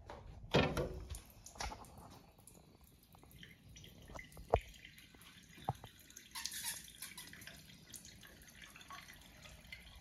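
1960s Crane porcelain trough urinal being flushed by its manual flush valve: a sharp knock of the valve about half a second in, then water running down the back of the trough and dripping, with a few sharper drips later.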